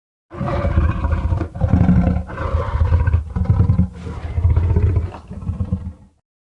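A monster roar sound effect, mixed from the 2014 Godzilla roar and the Jurassic Park T. rex roar. It is one long, deep roar of about six seconds that wavers with several brief dips and stops abruptly near the end.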